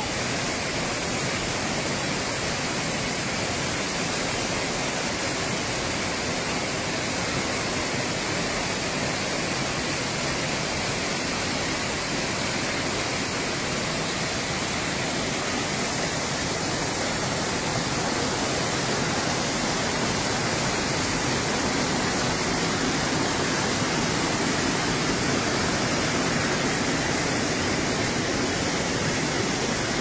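Steady rushing of a tall waterfall and the stream below it, an even noise with no breaks that grows slightly louder about halfway through.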